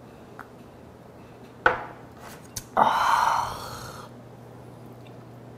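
A small glass clicks down on a table about one and a half seconds in, then a loud breathy exhale lasting about a second follows a shot of soju.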